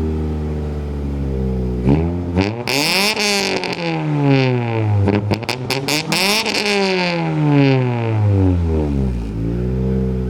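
Mitsubishi Eclipse engine idling, then revved hard twice through an exhaust with a Spec D high-flow cat. Each rev climbs and falls back over a few seconds, with a few sharp cracks around the second rev and a short blip near the end.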